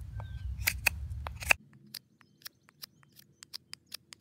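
Knife blade shaving wood in short, sharp carving strokes on a wooden fork blank: about five strong cuts in the first second and a half, then quicker, fainter strokes. A low background rumble cuts off about a second and a half in.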